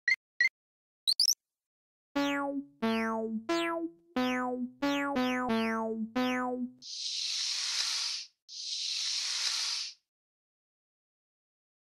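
Cartoon sound effects: a few short rising squeaks, then about eight springy, boing-like twangs at different pitches, each dying away quickly, followed by two hissing bursts about a second and a half long.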